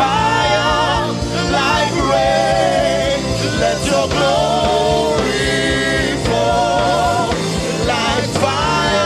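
Gospel worship music: a singer holding long, wavering notes over steady instrumental backing.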